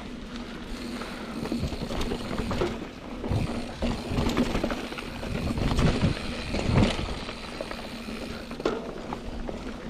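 Mountain bike being ridden along a dirt singletrack: tyre rumble and rattling of the bike over roots and bumps, with heavier jolts about halfway through.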